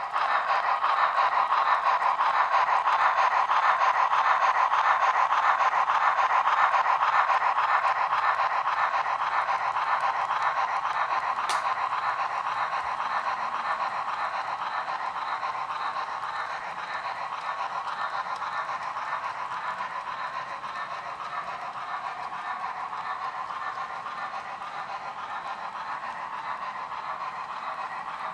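Model steam locomotive's sound system chuffing steadily as the train runs, slowly fading as it moves away.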